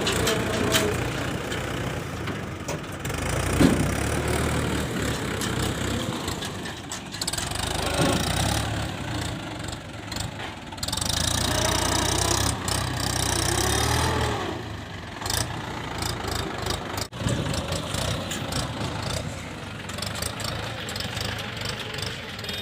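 JCB 3DX backhoe loader's diesel engine running while it works, its revs rising and falling with the load.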